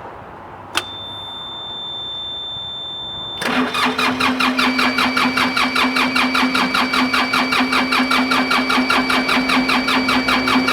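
A click and a steady electronic beep as the excavator is keyed on. Then its diesel engine cranks on the starter with an even pulsing of about six beats a second, without catching, which the crew puts down to air still in the fuel lines.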